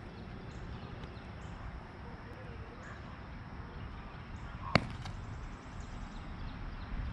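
Low, steady outdoor background at a baseball field, with faint distant voices. One sharp crack sounds about five seconds in.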